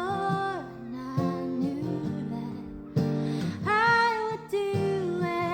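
Woman singing long, sliding notes over acoustic guitar.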